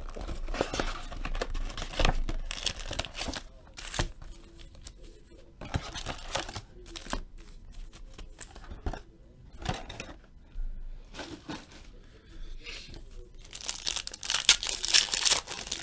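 Packaging of a Playoff football card box being torn and crinkled: the box is opened and its foil card packs handled, with irregular crackles and rips. Near the end a foil pack is torn open, the loudest stretch of crinkling.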